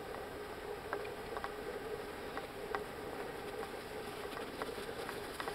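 Light, irregular clicks of a miniature horse's hooves walking on icy, packed snow, over a steady hiss.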